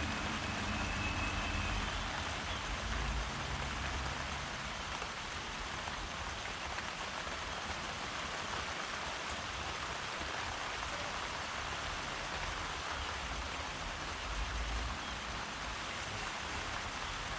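Steady rain falling, an even hiss, with a low rumble at times, strongest in the first few seconds and again near the end.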